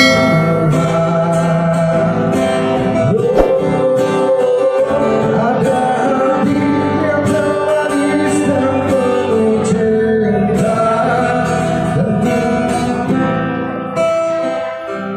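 A man singing a song into a microphone, accompanied by an acoustic guitar. Near the end the singing stops while the guitar plays on.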